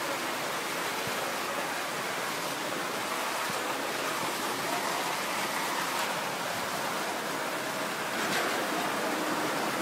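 Steady rush and hiss of fire hose streams spraying water onto the rubble of a collapsed house.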